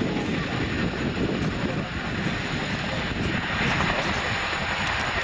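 Boeing Chinook HC4 tandem-rotor helicopter running close by, its two rotors chopping over the rush of its twin turboshaft engines as it balances nose-high on its rear wheels.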